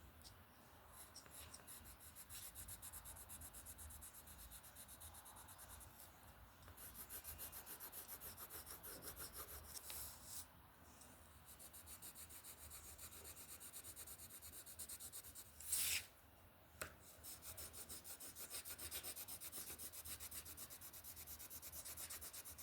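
Faint, quick back-and-forth scratching of a drawing tool shading in a picture, several strokes a second, pausing briefly now and then. A single sharp click, the loudest sound, comes near the three-quarter mark.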